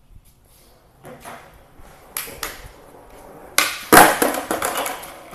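Skateboard wheels rolling on a concrete floor with a couple of clacks, then about three and a half seconds in, loud sharp cracks of the board being kicked and slapping down, followed by a quick clattering series of knocks as it bounces on the concrete.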